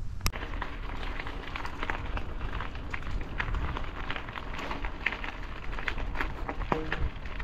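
Footsteps crunching on a dirt path strewn with gravel and dry leaves: a dense run of small crackles and ticks, with one sharper click a moment after the start, over a steady low rumble.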